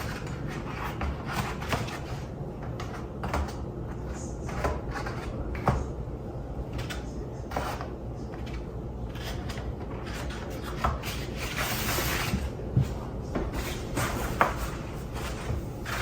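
Scattered light clicks and knocks of things being handled and set down, roughly one every second or so, over a steady low hum.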